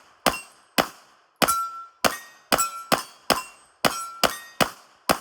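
Atlas Hyperion 2011 pistol, chunk-ported by Skip's Guns, fired in a steady string of about eleven shots, roughly two a second. A short metallic ring trails several of the shots.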